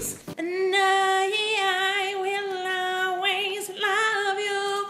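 A woman's voice singing one long held note, unaccompanied, starting about half a second in and lasting about four seconds.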